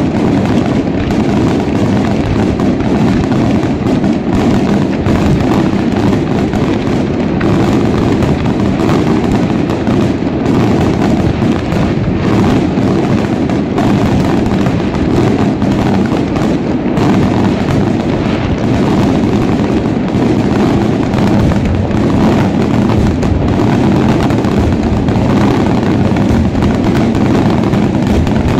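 Aerial fireworks display: a dense, continuous barrage of shell bursts, the bangs running together without a break.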